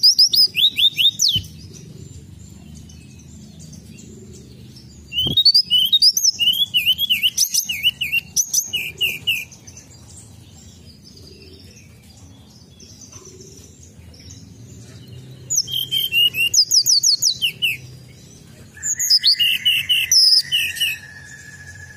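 Hill blue flycatcher singing: four bursts of quick, high whistled phrases with rapid trills and sliding notes, separated by pauses of a few seconds. Near the end a steady high tone starts underneath the song and carries on.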